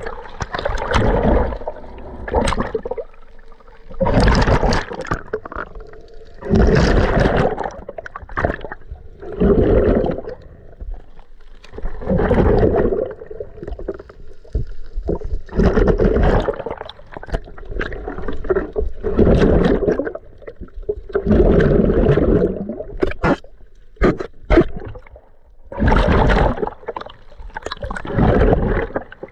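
Muffled water noise picked up by an underwater camera during snorkeling, surging in bursts every two to three seconds as the swimmer moves through the water.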